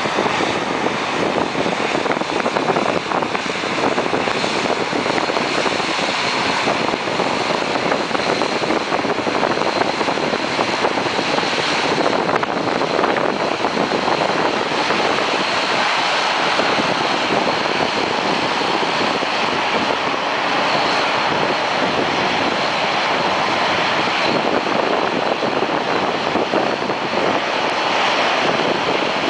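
Boeing 767-300 jet engines running, a loud, steady roar with a faint high whine held throughout.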